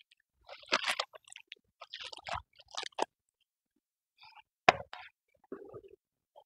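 Handling noises while making corn tortillas: the plastic sheet from a tortilla press crinkles in short rustles, then a tortilla is peeled off a metal comal and laid back down, with one sharp tap a little after halfway.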